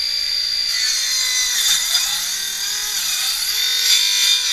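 Cordless circular saw cutting through a rotted wooden RV roof beam: a steady high motor whine that drops in pitch twice as the blade bogs in the wood, then stops just after the end.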